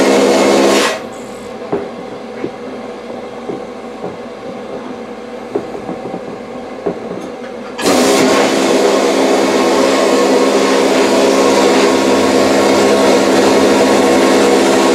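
Vapor blasting gun spraying wet abrasive at 60 PSI inside a blast cabinet, a loud steady hiss that stops about a second in. A quieter steady running sound and a few light taps follow, then the blasting starts again about eight seconds in.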